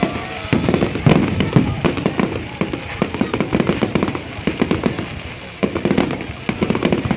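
Fireworks display: a dense run of bangs and crackles going off in quick succession. A loud cluster comes about a second in, and after a brief lull a fresh run of bangs starts near the six-second mark.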